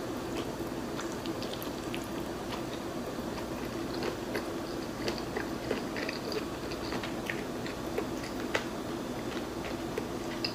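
Close-miked eating: biting into and chewing a soft dim sum shrimp roll, heard as many small wet mouth clicks and smacks over a faint steady hum.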